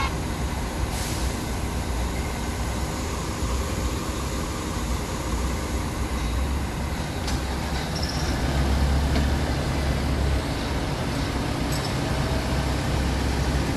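Lonking CDM6150 excavator running, a steady low diesel rumble, while its boom and bucket are worked hydraulically, with a few faint clicks.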